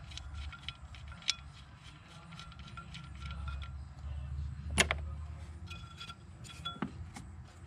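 Scattered light metallic clicks and clinks from hands handling hoses, clips and parts in a car's engine bay, with a sharper click about five seconds in, over a low rumble.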